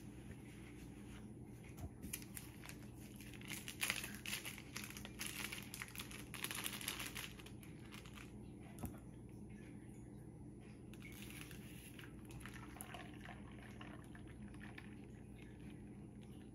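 Thin plastic freezer-pop bag crinkling and rustling in the hands, loudest from about three to seven and a half seconds in, then a single light knock, with a steady low hum underneath.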